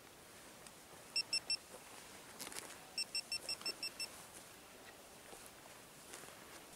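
Short high electronic beeps from a small device: three quick beeps about a second in, then a run of about seven evenly spaced beeps between three and four seconds in.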